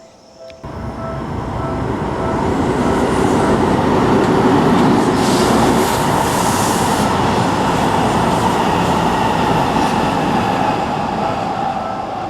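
A Seibu Ikebukuro Line train passes through a level crossing. The crossing bell's repeated ringing is heard at the start, then the train's running noise sets in suddenly about half a second in, is loudest midway and fades toward the end.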